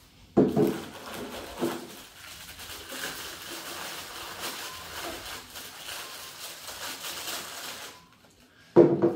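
Continuous crinkling and rustling of plastic wrapping being pulled off a Ninja Creami pint container, with a brief louder sound near the end.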